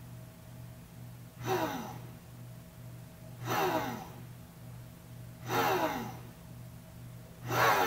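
1500-watt Drill Master heat gun switched in short pulses by a PID controller through a solid-state relay: four brief bursts of blowing about two seconds apart, each falling in pitch as the fan winds down. The controller is pulsing power because the enclosure temperature has dipped to its 70 °C setpoint. A steady low hum runs underneath.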